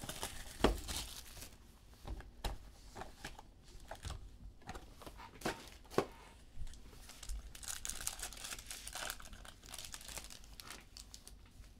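Wrappers of trading card packs being torn open and crinkled: a run of sharp rips and crackles, loudest about half a second in and again at six seconds.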